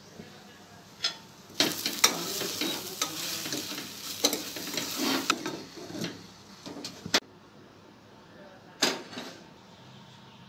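Food sizzling in a steel pot on a gas stove while a spoon stirs and scrapes it, then a few sharp clinks as a glass lid is set on the pot.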